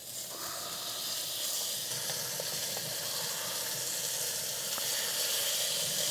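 Thin pieces of lamb frying in a little oil on a very hot grill plate: a steady sizzle that builds over the first second, with a few small crackles.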